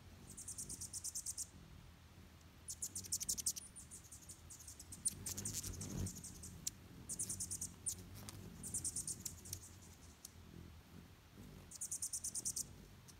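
Hummingbirds giving high, rapid chattering calls in about six bursts of a second or so each, the sharp chase chatter of rival hummingbirds squabbling over feeders.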